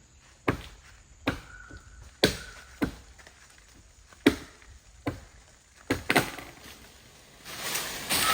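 Chopping strokes of a hand blade into a tree branch: about eight sharp, separate blows at an uneven pace, then a rustling noise that builds near the end.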